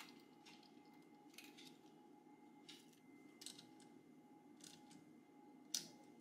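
Faint, scattered clicks of a small ratchet wrench tightening the nut on a car's 12-volt battery positive terminal, with a sharper click near the end.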